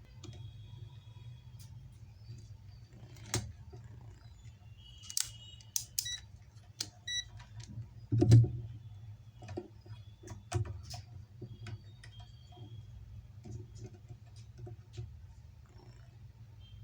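Multimeter probes clicking and tapping against the pins of the laptop's battery connector. A few short electronic beeps sound about five to seven seconds in, over a steady low hum.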